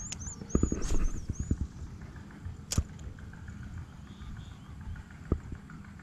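Wind rumbling on the microphone in open country, with a few knocks about a second in and one sharp click near the middle. A high chirping call repeats about three times a second during the first second and a half.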